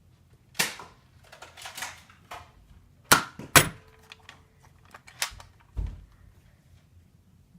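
Sharp snaps and clicks of spring-powered Nerf dart blasters being cocked and fired. The loudest are two snaps about half a second apart, a little past the middle, with a few quieter ones scattered before and after.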